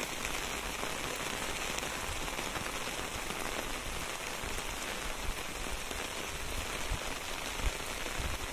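Steady rain falling, an even hiss of drops, with a soft low bump or two near the end.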